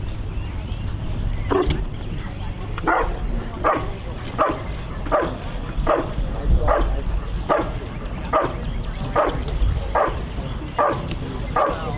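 German Shepherd barking in a steady rhythm, about one bark every three-quarters of a second, starting about a second and a half in. This is the bark-and-hold of a protection routine: the dog has found the helper in the blind and guards him by barking rather than biting.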